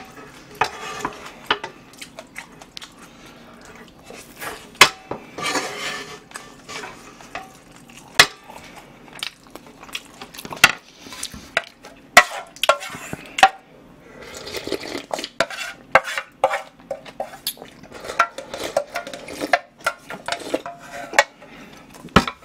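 Irregular sharp clinks, taps and scrapes of utensils on cookware: a wooden spatula scraping leftover fried rice from a nonstick frying pan, then a utensil knocking in a small metal pot as he eats from it.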